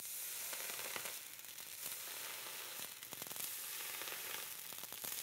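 Sugar on top of a leite creme sizzling with small crackles as a hot caramelizing iron is pressed lightly onto it, burning the sugar to caramel.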